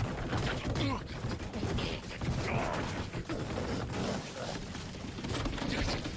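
Cartoon sound effects: a rapid, busy clatter of clicks and knocks, with a few short squeaky voice-like sounds over it.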